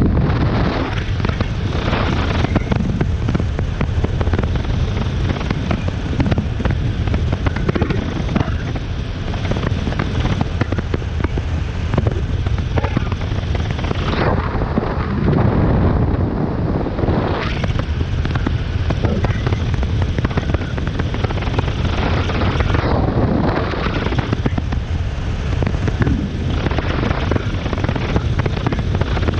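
Wind rushing over the microphone of a moving motorcycle, with the KTM 390 Adventure's single-cylinder engine running underneath as it cruises. The wind swells in brief louder surges a few times.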